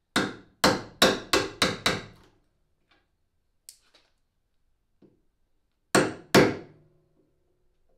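Claw hammer striking a chisel: six quick blows in the first two seconds, a few faint taps, then two more blows about six seconds in. The chisel is clearing out material that the bottomed-out hole saw could not reach.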